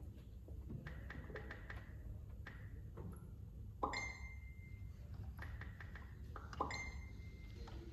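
Scattered groups of light taps with a faint high ring, and two sharper pings, about four and six and a half seconds in, each ringing on briefly.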